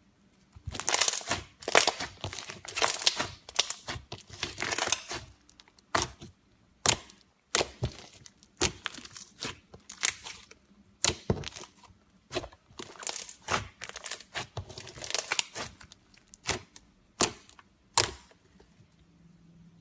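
Crisp crackling and crunching: dense clusters of sharp crackles at first, then single sharp snaps about once a second, then another run of clustered crackles later on.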